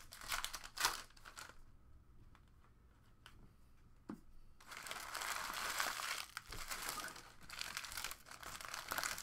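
Foil trading-card pack wrappers crinkling and tearing as packs are handled and opened: a short burst at the start, a quieter stretch with a few small clicks, then a longer run of continuous crinkling from about halfway on.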